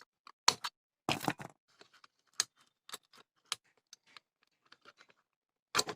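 Irregular small clicks and scrapes as a desoldered TDA2030 amplifier IC is worked loose and pulled from a circuit board, with a short burst of scraping about a second in.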